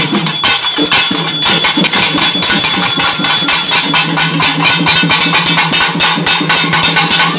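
Loud, fast drumming on a two-headed barrel drum: dense strokes keep up without a break, over a few steady high ringing tones.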